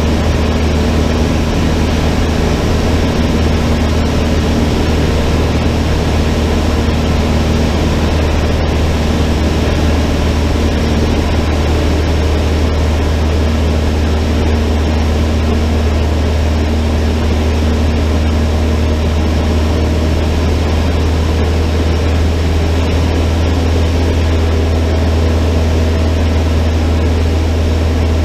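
Cessna 152's four-cylinder Lycoming engine and propeller running at a steady, unchanging drone.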